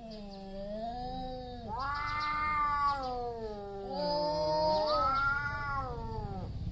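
Two male tomcats yowling at each other in a territorial standoff, the warning calls before a fight: long, drawn-out wavering cries that rise and fall in pitch, one call overlapping another around the middle.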